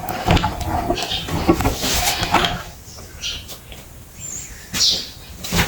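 Meat grinder grinding, with dense crunching clicks that die down about two and a half seconds in, followed by a few short high squeaks.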